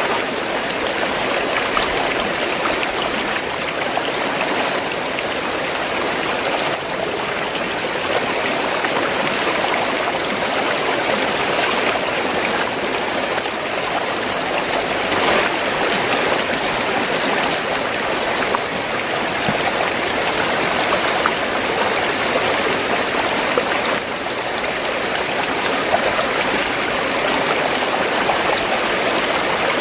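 Fast-flowing stream, water gurgling and rushing steadily.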